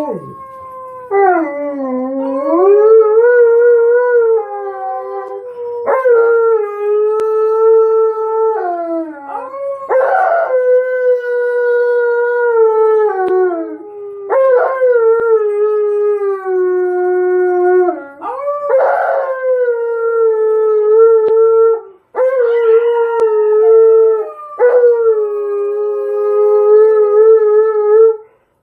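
Alaskan malamute howling, a run of long drawn-out howls of a few seconds each, most swooping up at the start, then holding or sliding down. A woman howls along with the dog.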